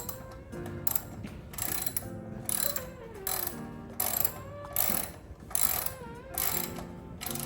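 Repeated mechanical clicking strokes, roughly one every half to three-quarters of a second, with squeaky pitched tones between them, like a hand tool or mechanism being worked back and forth.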